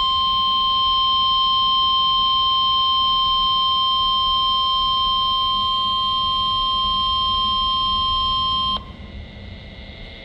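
NOAA Weather Radio 1050 Hz warning alarm tone, sent during the weekly test of the alert system: one steady, loud, high tone that cuts off sharply about nine seconds in. Faint receiver noise follows.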